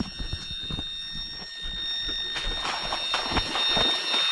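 Electronic carp bite alarm sounding one continuous high tone as a fish runs with the bait, over a fast, uneven rattle of clicks that grows louder.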